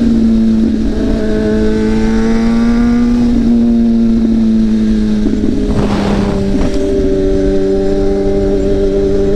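A straight-piped 2005 Kawasaki ZX-6R inline-four holding a steady engine note at cruising speed, with the pitch easing slightly about halfway through. Wind rumble runs under it, and a brief rush of noise comes about six seconds in.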